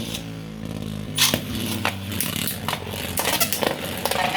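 Two 3D-printed Beyblade spinning tops whirring and scraping around a plastic stadium just after launch, with a steady hum and many sharp clacks as they strike each other.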